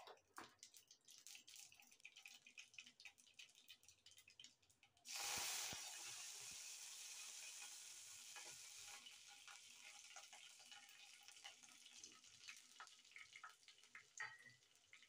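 Mustard seeds crackling and popping in hot oil in a kadai. About five seconds in, curry leaves go into the oil and it bursts into a loud sizzle that slowly dies down. Near the end there is a brief spatter as the ground garlic paste goes in.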